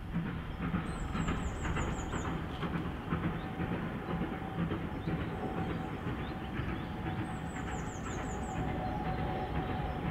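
Preserved steam locomotive working a train, a steady rumble of exhaust and rail noise. A small bird sings a short high descending trill twice, about a second in and again about seven seconds in.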